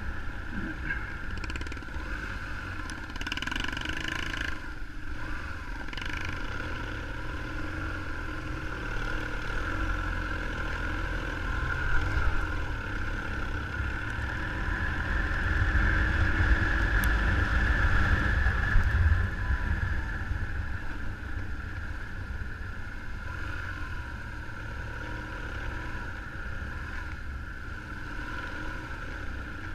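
Motorcycle engine running steadily while riding, with a low wind rumble on the microphone. It grows somewhat louder for a few seconds around the middle.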